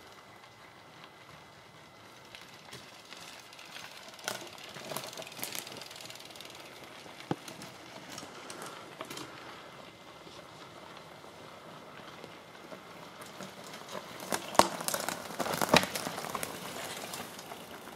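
Fat-tyre bicycle towing a loaded game cart rolling over a dirt trail strewn with twigs: tyre noise with scattered clicks and crackles, loudest as it passes close near the end.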